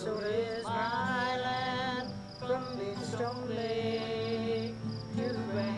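A folk song sung to acoustic guitar accompaniment: a voice holding long sung notes over steady strummed chords, with brief breaths between phrases.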